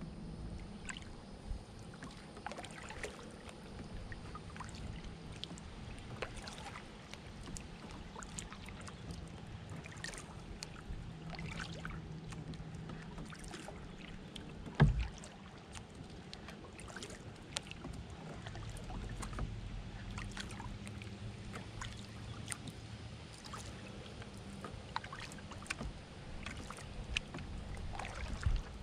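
Canoe being paddled: paddle strokes in the water with light splashes and drips, and one loud knock about halfway through.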